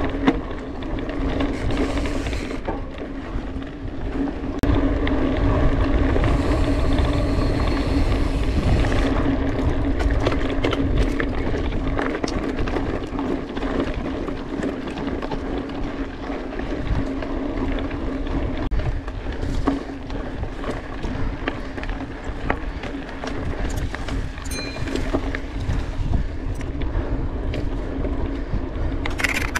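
Mountain bike being ridden along a dirt trail: wind rumbling on the camera microphone, tyre noise and frequent rattling clicks from the bike, over a steady buzz.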